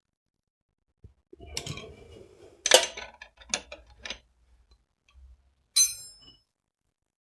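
Metal workshop hand tools clinking and knocking: a cluster of clicks and rattles, then one bright ringing clink near the end.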